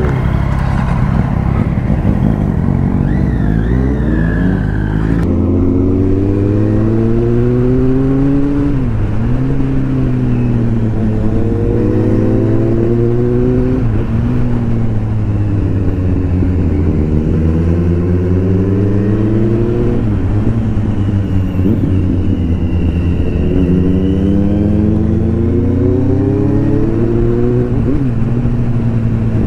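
Motorcycle engine heard from on board, pulling away and accelerating through the gears: its pitch climbs and drops back at each gear change, about four times.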